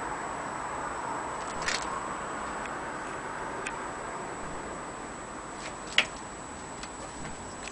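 Scattered light clicks and taps from handling a vintage folding film camera, the loudest about six seconds in, over a steady hiss with a faint high whine.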